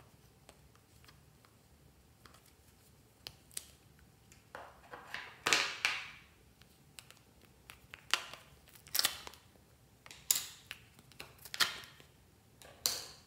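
Stiff plastic slime containers being handled: a string of sharp plastic clicks and crackles, each dying away quickly, the loudest about halfway through.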